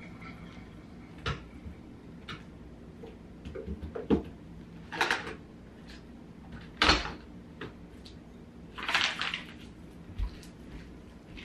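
Items being picked up and handled on a wooden coffee table while tidying: scattered light knocks and clatters of cups and objects, with a few short rustling scrapes.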